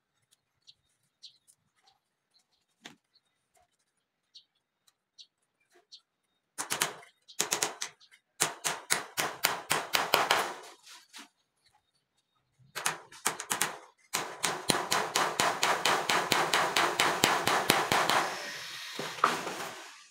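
Small hammer tapping nails into the wooden frame of a wire-mesh sand sieve, fixing the mesh down, in quick strikes at about five a second. It comes in two runs, the second longer, after a few seconds of only faint ticks.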